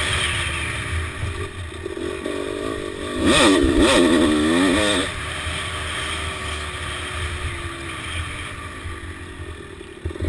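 1997 Honda CR250R's 250 cc two-stroke single engine heard from on the bike: a loud burst of revving that rises and falls a few times about three seconds in, then the engine runs on with its pitch slowly falling as the rider eases off.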